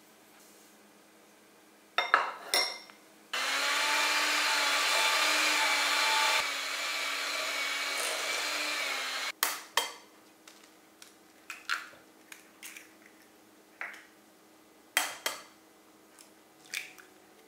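Electric hand mixer beating butter and sugar in a glass bowl, running steadily for about six seconds and dropping a little in level partway through. A few clinks come before it, and after it scattered taps and knocks, with eggs cracked on the bowl near the end.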